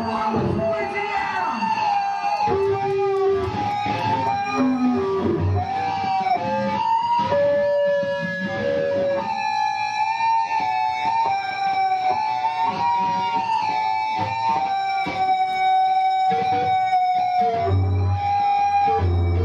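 Sludge metal band playing live: electric guitars hold wavering, bending sustained notes. A heavy low-end riff comes in near the end.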